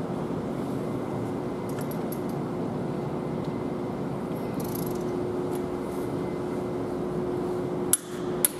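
Steady workshop background noise with a low hum. Near the end come two sharp clicks as hands work at the exposed timing gears of a Cummins ISX engine.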